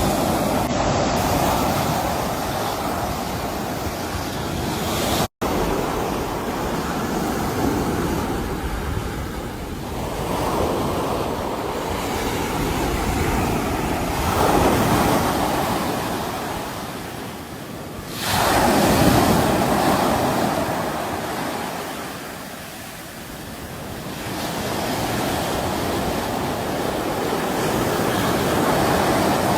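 Sea waves breaking and washing back, the surf swelling and falling away every few seconds, with its loudest break a little past halfway. A split-second dropout to silence comes about five seconds in.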